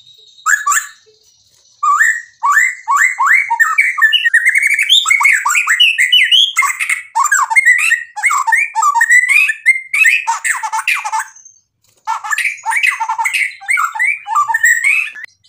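White-rumped shama (murai batu) singing a long, fast, varied song full of mimicked phrases (isian): quick whistles, trills and chattering notes, with short breaks about a second in and again near twelve seconds.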